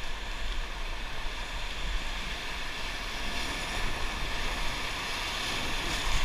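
Wind buffeting the microphone with a low, fluttering rumble over a steady rush of water.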